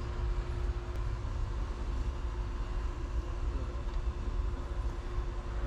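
Steady low background rumble with a faint steady hum; no distinct handling sounds stand out.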